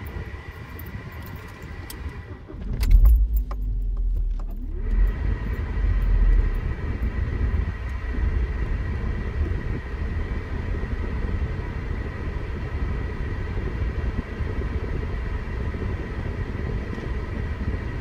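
Car heard from inside its cabin as it rolls slowly out of an automatic car wash: a steady low rumble with a faint steady high tone. About three seconds in, a heavier low rumble swells for a couple of seconds and muffles everything above it.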